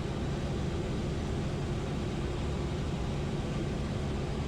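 Piper Cherokee's piston engine and propeller droning steadily in flight, heard from inside the cabin.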